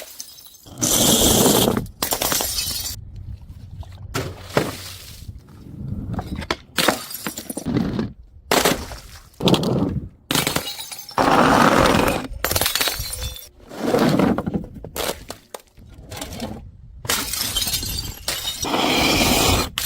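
Glass bottles and jars smashing and shattering, more than a dozen separate breaks one after another, with abrupt cuts between them.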